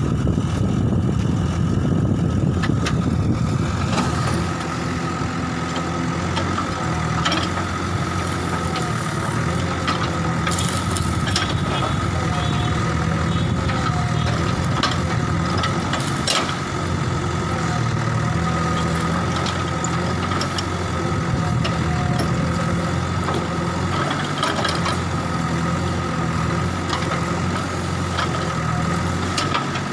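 JCB backhoe loader's diesel engine running steadily, with scattered sharp knocks over it.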